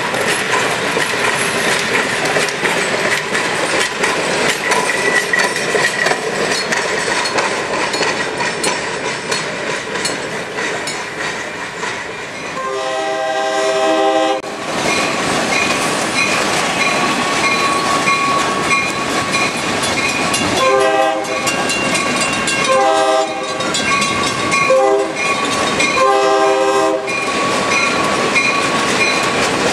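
Passenger train rolling along the rails with wheel clatter, then a diesel locomotive's multi-note air horn: one blast about halfway through, then the grade-crossing signal of two long blasts, a short one and a long one. A bell rings repeatedly through the second half.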